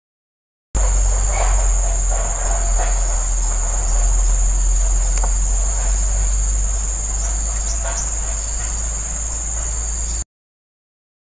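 Steady high-pitched insect drone over a loud low rumble, with a few faint ticks. It starts abruptly under a second in and cuts off abruptly about a second before the end.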